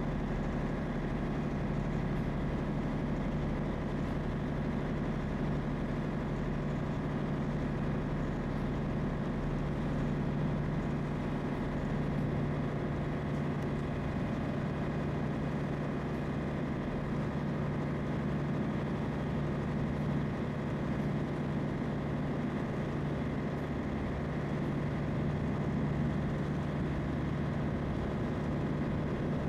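Small ferry's engine running steadily with a constant low hum and no change in speed.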